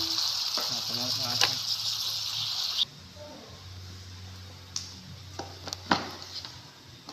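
A pan of vegetables and seafood sizzling on a hob with a steady hiss and a voice briefly over it; the hiss cuts off abruptly about three seconds in. After that, a low hum and several sharp plastic clicks as a hand works the lid of a white electric rice cooker.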